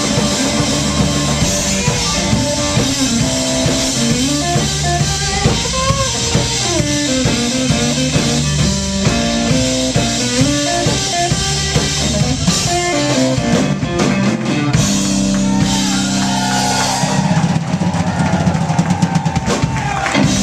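Live rock band playing an instrumental section: a lead guitar line wanders up and down over bass and a drum kit. Near the end the band settles onto held low notes under rapid drumming, as a song's ending build.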